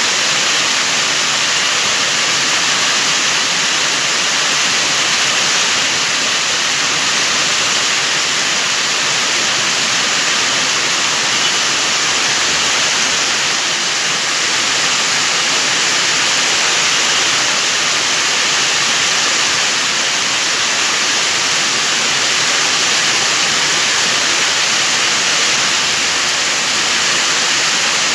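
Heavy rain pouring down: a loud, steady hiss that does not let up.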